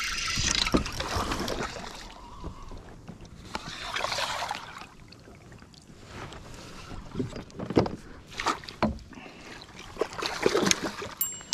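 Hooked bass thrashing at the water's surface beside a kayak and being scooped into a landing net: a run of sharp splashes in the last few seconds.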